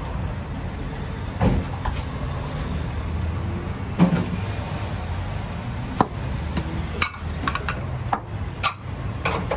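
Scattered short knocks and clinks from doner meat and fries being laid onto lavash wraps with a metal scoop, about eight across a few seconds. Under them runs a steady low rumble of street traffic.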